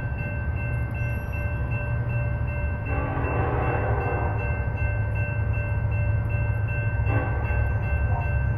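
Union Pacific diesel locomotive sounding its air horn: one chord about a second and a half long about three seconds in, then a short blast near the end, over a steady low rumble.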